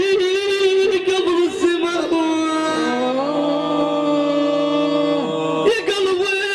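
Middle Eastern devotional music: an ornamented melodic line, interrupted about two seconds in by a sustained chord whose notes come in one after another. The chord stops abruptly near the end, and the ornamented line returns.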